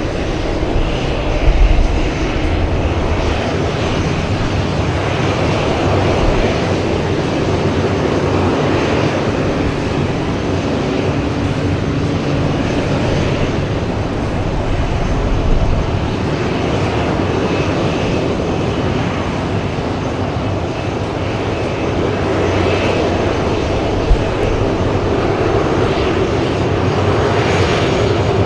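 Jet airliner engines running with a steady, loud rumble that builds slightly near the end, with a brief low thump about a second and a half in.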